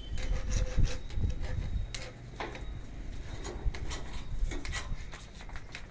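Scattered light knocks and clatter, with a low rumble during the first two seconds.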